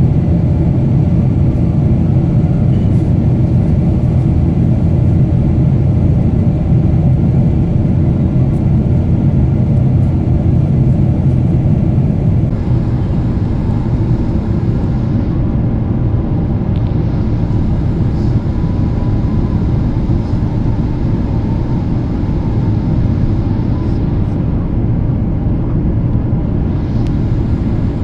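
Boeing 777-200ER cabin noise in descent: a steady, loud rumble of jet engines and airflow over the fuselage. It eases slightly about halfway through.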